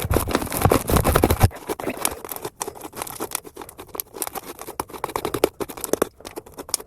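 Fluffy slime being kneaded and pressed by hand: a run of small sticky clicks and squelches, heavier and louder for the first second and a half, then lighter. The slime is over-activated and stiff from too much activator.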